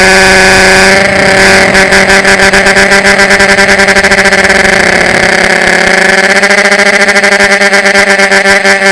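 Electric motors and propellers of a small FPV drone heard loud and close through its onboard camera: a steady whine with a rapid flutter, dipping slightly in pitch midway and then rising back as the throttle changes.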